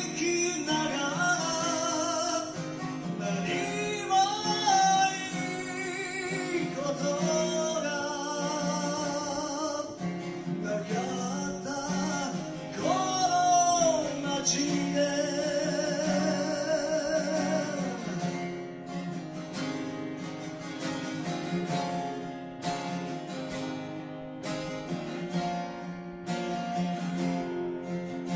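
A man singing in Japanese to his own strummed acoustic guitar. The voice drops out about eighteen seconds in and the guitar carries on strumming alone.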